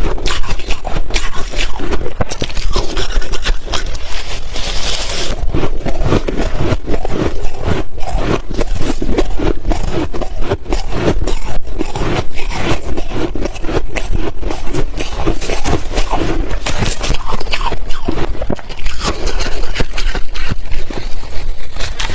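Close-miked chewing of crunchy ice: a continuous run of loud, rapid crunches.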